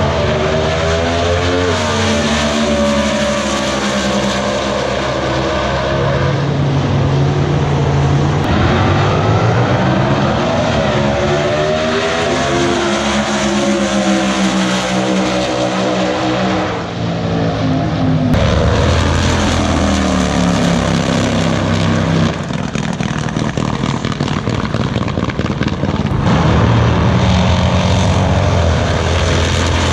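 Drag racing car engines running loud and revving, their pitch climbing and falling several times, with a brief drop in level about seventeen seconds in and a rougher, choppier stretch after about twenty-two seconds.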